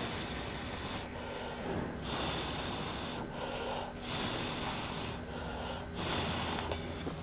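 Slow, even breathing close to the microphone: a soft hiss about every two seconds, over a faint steady low hum.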